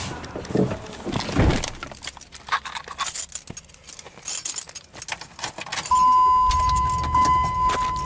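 Keys jangling and rattling as someone gets into a truck's driver's seat. About six seconds in, the engine starts and runs with a low rumble under a steady high electronic warning tone.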